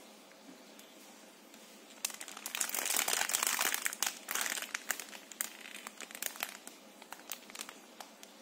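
Clear plastic wrapper crinkling as hands work it open around a squishy foam toy. Quiet for the first two seconds, then about three seconds of dense, loud crinkling, thinning to scattered crackles near the end.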